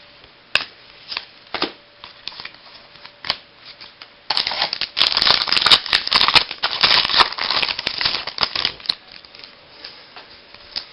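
Baseball trading cards being handled: a few light clicks and flicks, then about four seconds of dense rustling and crackling as cards are slid and sorted by hand, before it settles back to occasional clicks.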